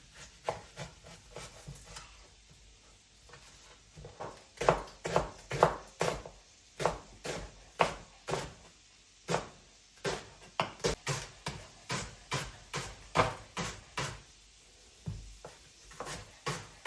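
Knife chopping on a wooden cutting board: a run of sharp knocks, irregular at first, then steadier at about three a second.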